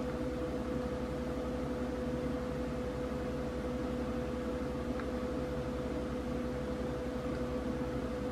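Steady background machine hum with one steady mid-pitched tone, and a single faint tick about five seconds in.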